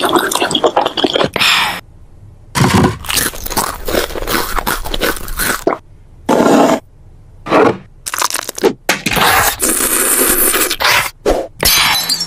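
A string of added cartoon eating sound effects, crunching and chomping, each lasting half a second to a second and a half, with short silent gaps between them; the longest comes near the end.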